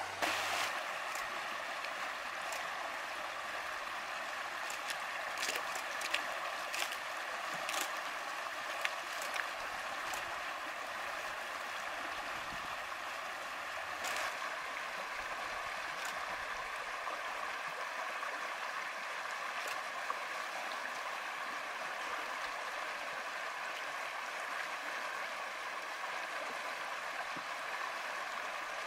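Steady rush of running water, broken by a few short sharp splashes; the loudest, about fourteen seconds in, is an American alligator lunging at a fish in the shallows.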